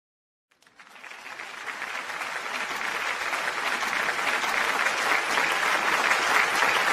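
Audience applauding, fading in from silence about half a second in and growing steadily louder.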